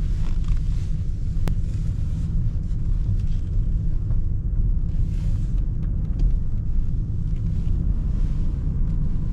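Steady low rumble of a car driving, heard from inside the cabin, with a single sharp click about a second and a half in.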